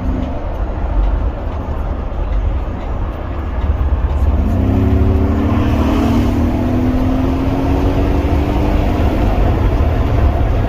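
2015 Mercedes-Benz G63 AMG's twin-turbo 5.5-litre V8 through its stock exhaust, accelerating. About four seconds in the engine note gets louder and climbs steadily in pitch for about five seconds, over a constant low rumble.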